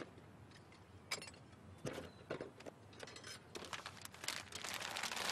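Faint rustling and crinkling of the plastic protective film being pulled off a flat-plate solar collector, getting denser toward the end. A few light knocks in the first two seconds as cardboard boxes of parts are handled.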